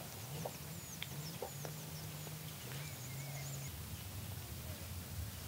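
Birds calling: quick high chirps over a low, drawn-out fowl-like call for the first three and a half seconds. A few soft clicks come from hands working in dry soil in the first second or two.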